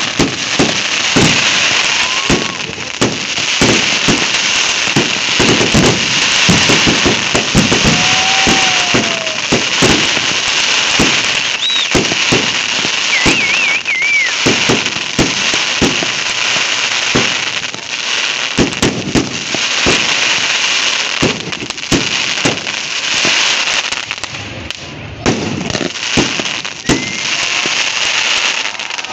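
Large wood bonfire burning, with a dense, continuous crackling and popping of the burning wood.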